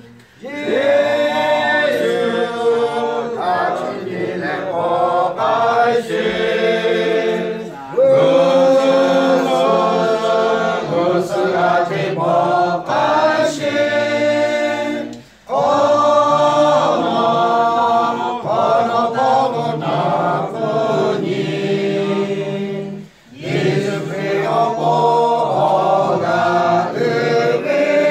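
A choir singing in long phrases, with short pauses about 15 and 23 seconds in.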